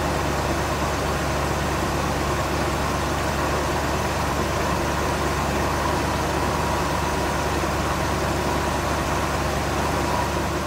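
Truck engine idling steadily with a constant low hum.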